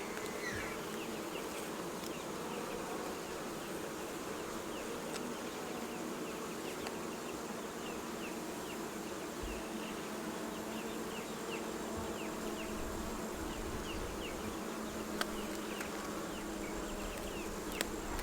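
Many honeybees buzzing around an open hive, a steady hum of the colony.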